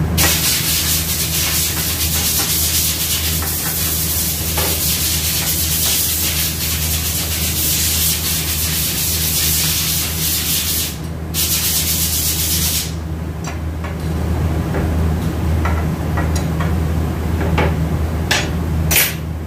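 Steel T-handle tool turned by hand in a bore of a Ford Crown Victoria automatic transmission's valve body: a steady scraping of metal on aluminium that stops about 13 s in, with a brief break just before. A few light metallic clicks follow as parts are handled, over a steady low shop hum.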